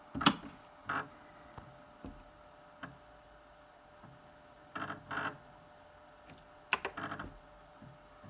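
Osborne 1's 5.25-inch floppy drive booting CP/M: a sharp click just after the start, then scattered clicks and two short clusters of head-stepping buzz about five and seven seconds in, as the drive reads the boot disk.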